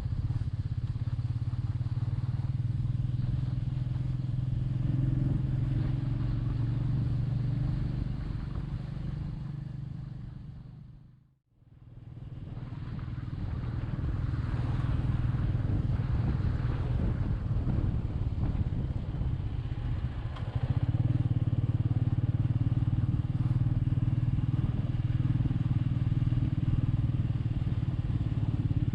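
Royal Enfield Meteor 350's single-cylinder engine running steadily while riding. The sound fades out to silence about eleven seconds in and fades back in, then gets louder about twenty seconds in.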